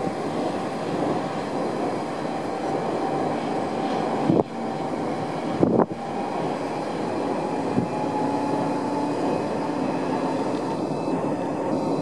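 EF200 electric locomotive running light, a steady rumble of wheels on rail with a faint even hum. There are two brief thumps about four and six seconds in.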